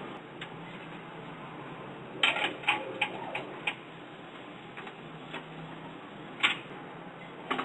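Knocks and clicks of an orange PVC sanitary pipe fitting being handled and pushed into place: a quick cluster of several knocks a couple of seconds in, then a few single knocks.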